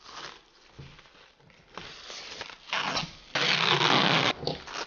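Clear plastic wrap being peeled off a new air fryer: a few short crinkling rustles, then a louder ripping pull about three and a half seconds in that lasts nearly a second.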